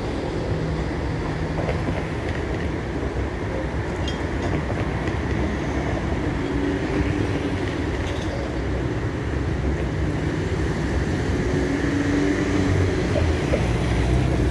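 Street traffic with a tram running along its tracks and moving off, amid passing cars: a steady rumble that grows louder near the end.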